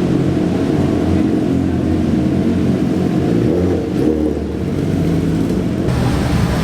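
Motorcycle engines running at low revs as the bikes pull in, the engine note wavering up and down a little.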